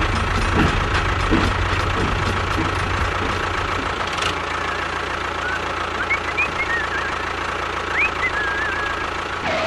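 A small motor running steadily with a low hum, and a few faint high chirps in the second half.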